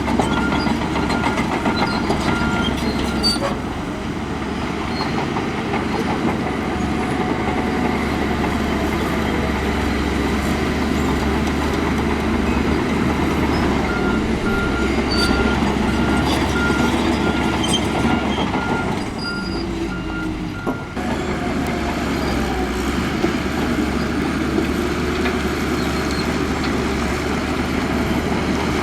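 Heavy diesel earthmoving machinery running steadily, with a reversing alarm beeping in a regular pulse during the first few seconds and again for several seconds past the middle.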